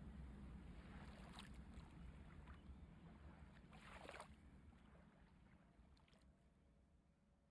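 Near silence: a faint low hum, with two soft brief rustles or clicks, about a second and a half in and again about four seconds in, all fading away in the second half.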